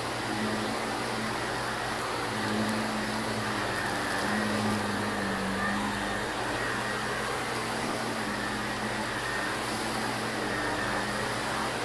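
Shark upright vacuum cleaner running steadily on carpet, its motor hum wavering a little in pitch as the head is pushed back and forth.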